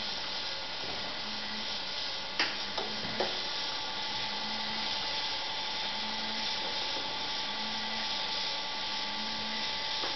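Steady electrical hum and hiss from the model rescue cruiser's electronics. A low tone pulses on and off about once a second, and there are three light clicks a couple of seconds in.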